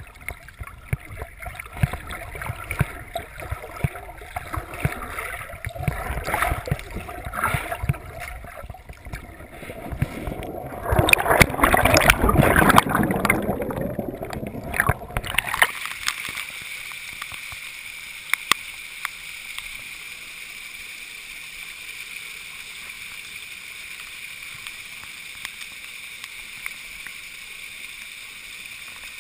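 Swimming underwater heard from a body-worn camera: irregular water sloshing and knocks, loudest as the swimmer reaches and grabs the rock. About halfway through the camera comes out of the water and the sound turns to a steady hiss.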